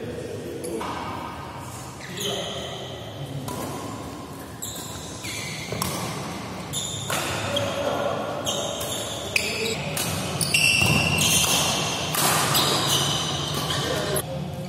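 Badminton rally: rackets striking the shuttlecock again and again, with shoes squeaking on the court mat, echoing in a large sports hall.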